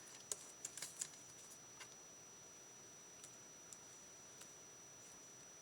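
Faint small clicks and taps of paper-craft handling at a desk: a short cluster about the first second, then a few scattered soft ticks.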